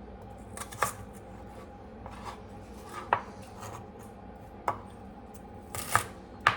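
Kitchen knife chopping food on a cutting board: a handful of irregular, sharp knocks a second or more apart, with fainter taps between them.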